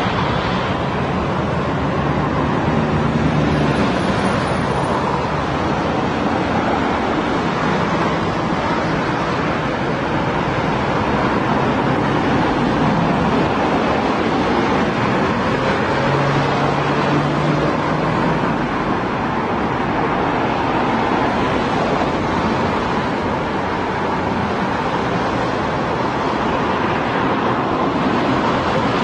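Continuous road traffic noise: a steady wash of passing vehicles, with a low engine hum standing out a few seconds in and again about sixteen seconds in.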